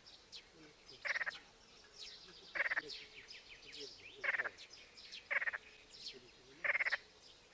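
A frog calling with short, rattling croaks about every second and a half, five times, while small birds chirp and twitter high above it.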